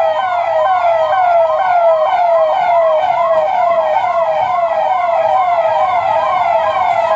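Police vehicle siren in rapid yelp mode: the pitch jumps up and falls back about three times a second, steady and loud.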